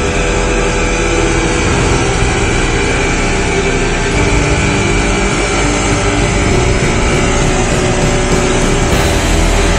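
Petrol backpack leaf blower running steadily at full speed, its engine note over the rush of air blasting from the blower tube.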